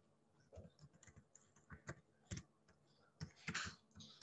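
Faint typing on a computer keyboard: a string of separate, irregular key clicks.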